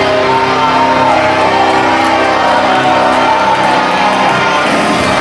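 Loud wrestling entrance music playing steadily, with a repeating low beat.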